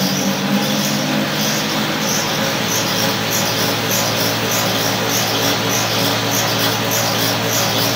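Cotton candy machine running: a steady motor hum with a regular whirring pulse about twice a second as the spinner head turns.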